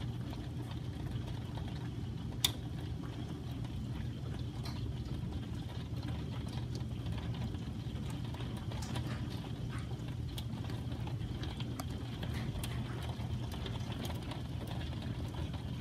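Hailstorm: a steady rush of heavy rain with many scattered ticks of hailstones striking, and one sharper knock about two and a half seconds in.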